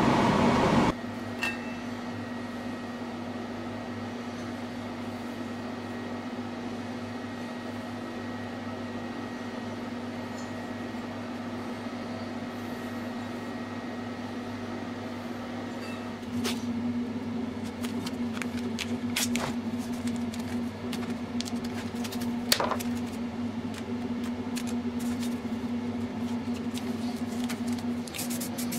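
A loud rough noise cuts off about a second in, leaving a steady mechanical hum like a fan running. The hum grows a little louder past the halfway point, with scattered clicks and taps as the welded steel pieces are handled.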